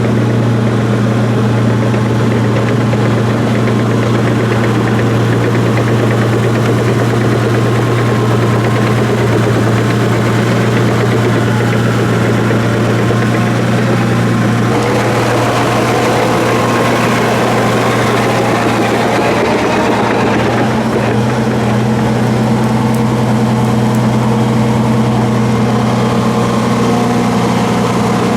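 Cat D5 bulldozer's diesel engine running steadily while it drags a long pine log on a chain; a higher whine joins in about halfway through.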